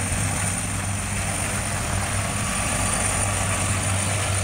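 Helicopter lifting off and climbing, its rotor thudding in a steady fast beat under a constant high whine.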